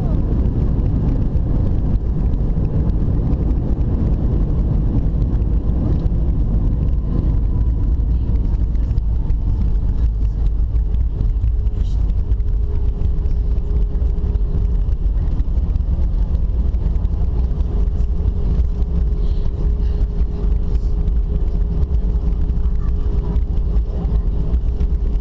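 Steady low rumble in the cabin of an Airbus A319 rolling out on the runway after touchdown, with the engines and wheels slowing the aircraft. A faint whine falls slightly in pitch, and a steady hum joins about halfway.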